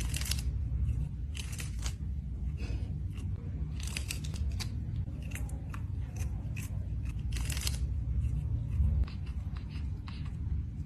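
A string of short, crisp snipping or crunching sounds at irregular intervals, over a steady low rumble.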